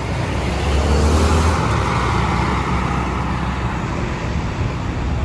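A heavy road vehicle passing close by, its engine rumble and tyre noise swelling to a peak about a second in, then easing into steady traffic noise.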